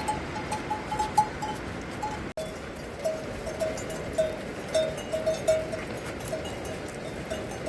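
Livestock bells clinking irregularly over a steady hiss. A higher-pitched bell rings in the first couple of seconds; after a brief cut a lower-pitched bell carries on.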